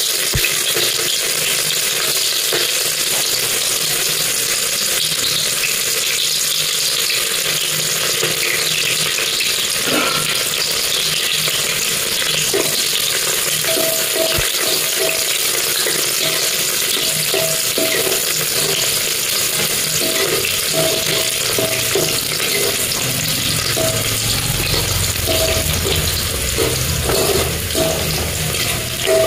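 Sliced onions sizzling steadily in hot oil in an aluminium pressure cooker. From about halfway through, a metal spoon scrapes against the pot again and again as the onions are stirred.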